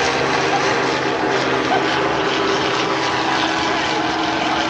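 Steady engine drone: a constant hum with several held tones over a rushing background.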